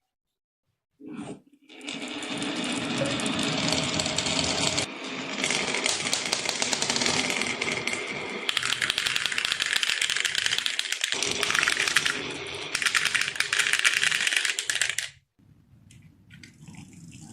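Many marbles rolling and clattering down a wooden HABA marble run, a dense, rapid rattle of clicks. It starts about two seconds in, swells and dips a few times, and cuts off abruptly near the end.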